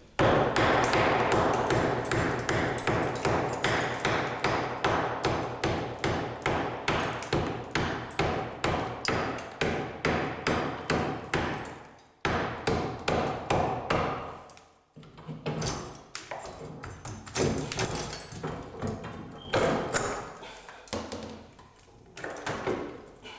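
Rapid hammer blows, about three to four a second, chipping away cement debris inside a wall, followed by slower, irregular strikes with short pauses.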